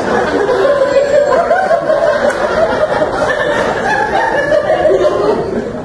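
Audience laughing, many voices together, holding steady throughout as a response to a stand-up punchline.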